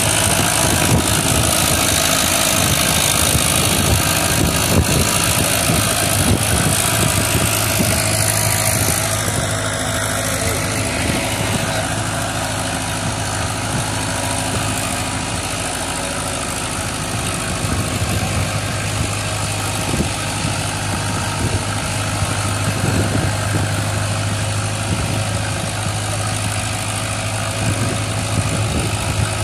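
Farmtrac 6055 tractor's diesel engine running steadily under load as it pulls two disc harrows through the soil, a little fainter from about ten seconds in.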